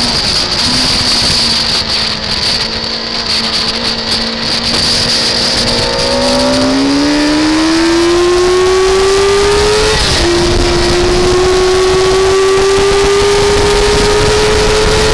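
Onboard sound of a car's engine lapping a circuit. The note drops as the car slows, holds low and steady for several seconds, then rises steadily under acceleration. About ten seconds in there is a quick dip, an upshift, and the note then climbs slowly again, with a steady hiss of wind and road noise throughout.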